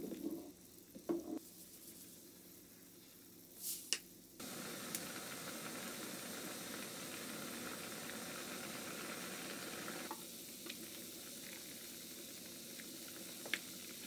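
Food sizzling as it fries in a pan. A few light knocks of utensils come first; the sizzle jumps louder about four seconds in and eases back a little about ten seconds in.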